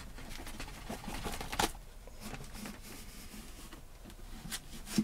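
The cell pack of a LiFePO4 battery being slid out of its plastic case by gloved hands: faint scraping and handling noise with a few light clicks, and a sharper knock about one and a half seconds in.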